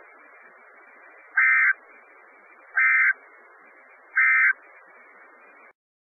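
NOAA Weather Radio end-of-message SAME data bursts: three short, loud digital buzzes about a second and a half apart over faint radio hiss, signalling the end of the Emergency Alert System message. The hiss cuts off near the end.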